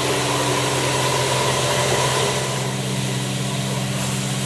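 Hot water extraction carpet-cleaning machine running: a steady drone with a low hum and a few held tones under a hiss.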